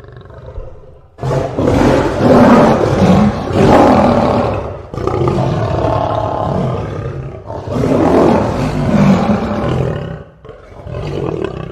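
Lion roaring in four long, loud bouts with short breaks between them; the last is cut off suddenly.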